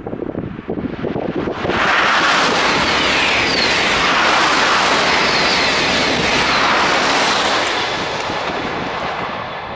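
TGV high-speed train passing at speed: a sudden rush of wheel and air noise about two seconds in, holding steady for several seconds, then fading as the train moves away.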